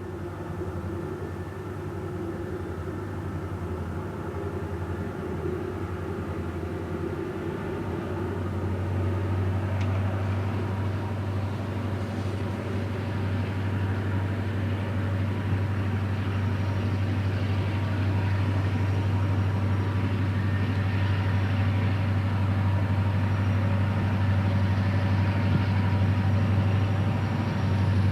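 Diesel locomotive engine running with a steady low drone, getting gradually louder as the train approaches.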